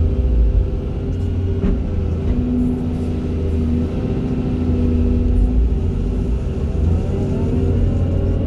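Excavator diesel engine running under load: a heavy low rumble with steady whining tones over it. The pitch rises near the end.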